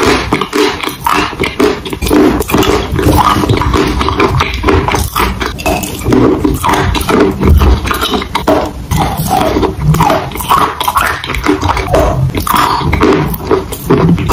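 Close-miked biting and chewing of water-soaked chalk: wet, squishy mouth sounds with many small clicks, going on steadily.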